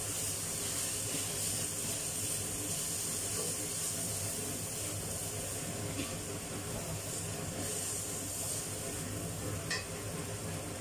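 Ground spice paste sizzling steadily as it is stir-fried in hot oil in a steel wok, with a couple of light clicks of the spatula against the wok.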